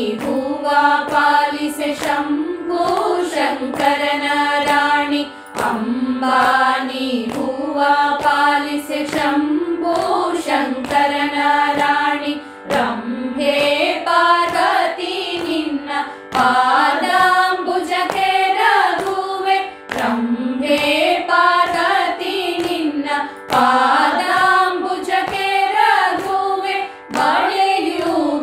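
A group of women singing a Kannada devotional song (devaranama) together in Carnatic style, in raga Brindavani Sarang, the sung phrases broken by short pauses every few seconds.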